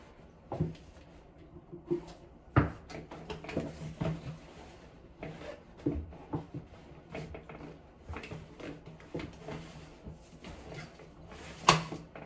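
Belongings being handled and packed by hand: rustling with scattered clicks and knocks of objects being moved and set down, and a sharp knock near the end.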